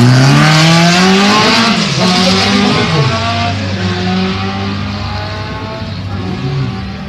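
Rally car engine revving hard as it accelerates away from the start. The pitch climbs, breaks at quick gear changes about one and a half and three seconds in, then the sound fades as the car leaves.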